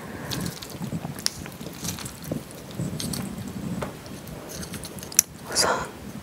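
Chopsticks stirring and lifting saucy jajangmyeon noodles (rice-barley noodles and Chinese glass noodles in black bean sauce): wet squishing with light chopstick clicks, then a sharp click and a brief louder wet smack near the end.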